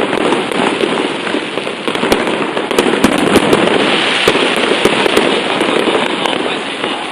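Fireworks crackling densely and without a break, with many sharp cracks standing out, easing off a little near the end.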